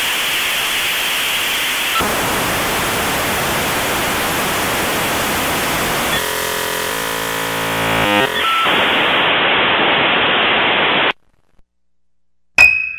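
Steady static hiss with a stretch of buzzing tones mixed in about six seconds in. It swells briefly, then cuts off suddenly about 11 seconds in. Just before the end, one sharp ringing ping.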